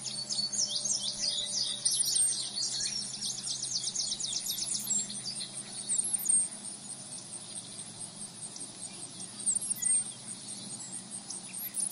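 Birds chirping and twittering, busiest in the first few seconds, over a steady high-pitched insect trill.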